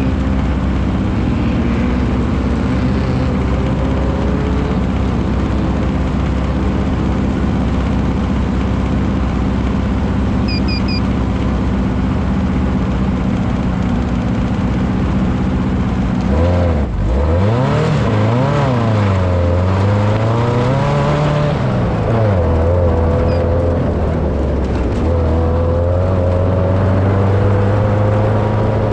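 Off-road race vehicle's engine running hard and steady at speed; about halfway through the pitch drops sharply, then rises and falls twice as the driver eases off and gets back on the throttle, before holding steady again.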